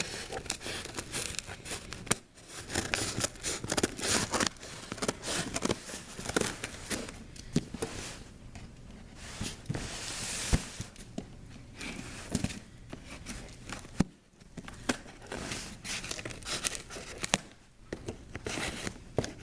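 A cardboard shipping box being cut and torn open: irregular snips, scrapes and tearing of cardboard and tape, with crinkling of packaging.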